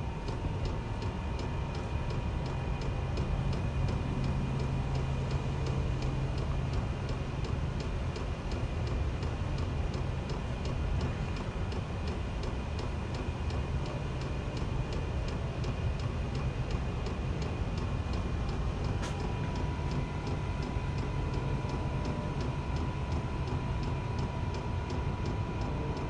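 Vevor 8 kW diesel heater's fuel dosing pump ticking at a regular, even pace over the steady low hum of the running heater, as it starts up and gets going. A single click comes in about three-quarters of the way through, followed by a faint steady tone.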